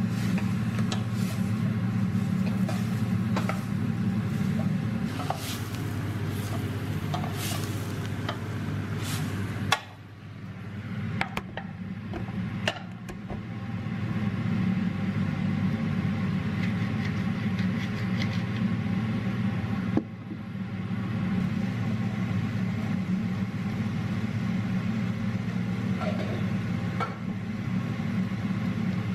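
Steady low hum from the stove area, with clicks and taps of a wooden spoon stirring in a metal saucepan in the first part.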